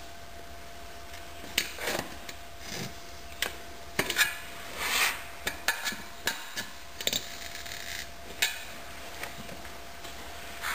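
Screwdrivers used as tire levers clinking and scraping against a dirt bike wheel rim while the rear tire bead is worked over it: scattered metallic clicks and knocks with a few short scrapes.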